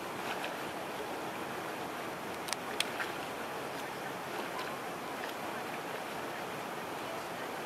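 Steady outdoor wind and water noise at the lakeside, with two sharp clicks close together about two and a half seconds in.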